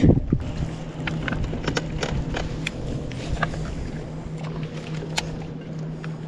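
Steady low hum of a fishing boat's motor, with scattered small clicks and knocks on the boat, one sharper click about five seconds in.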